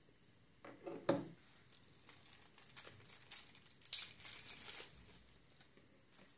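Faint handling sounds. There are a couple of light knocks about a second in as the small plastic 3G router, its back cover off, is set down on a table. Around four seconds in comes a stretch of paper rustling.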